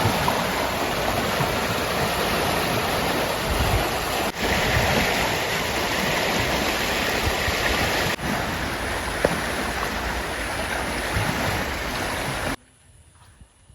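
River water rushing, a loud, even rush with short breaks about four and eight seconds in. Near the end it cuts off sharply into quiet, with a few faint calls.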